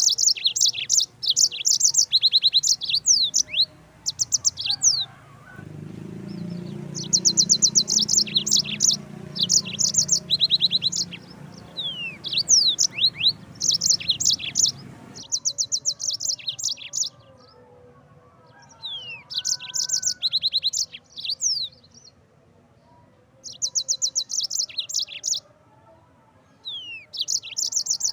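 Yellow-fronted canary (Mozambique canary) singing: bursts of fast, high trilled notes lasting a second or two, repeated with short pauses between them. A low steady rumble runs underneath from about six to fifteen seconds in.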